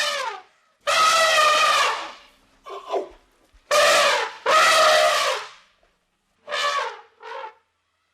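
A series of loud animal calls, each a steady pitched cry lasting up to about a second, about six in quick succession with short pauses between, the last two shorter.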